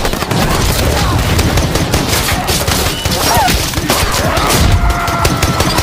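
Sustained rapid gunfire, many shots a second without a break, from an animated action scene's sound effects.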